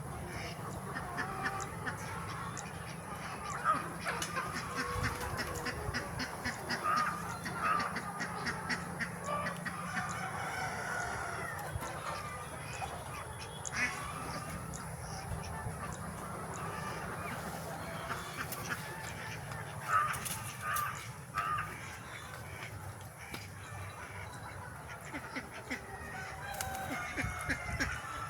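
A flock of free-range country chickens clucking and calling, many short overlapping calls throughout.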